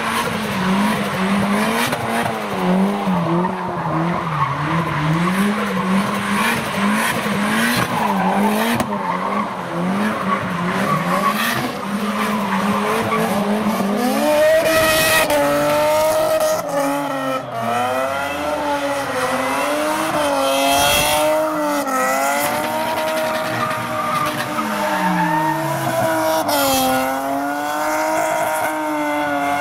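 Cars drifting in tyre smoke: engines revving up and down in waves while the tyres squeal. About halfway through, a higher, louder wavering note takes over, rising and falling with the throttle.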